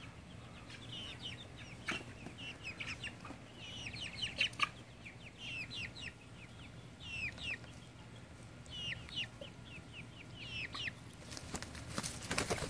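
A flock of young Australorp and Cornish Cross chickens peeping: short, high, falling peeps in scattered clusters. Near the end comes a rush of wing flapping as the chicks jump around and spar.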